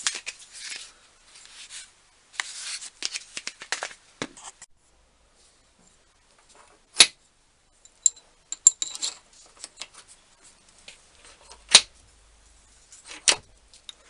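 Small metal tools being handled on a workbench: rustling and scraping during the first few seconds, then several sharp metallic clicks and taps, a few with a brief high ring.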